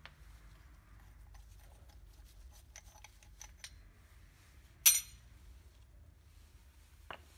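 Small metal parts being handled: light ticks and clicks as a homemade brake piston spreader (threaded rod and steel plate) is worked off a brake pad on a caliper. About five seconds in there is one sharp, ringing metallic clink, and near the end a single click as the brake pad is lifted out of the caliper.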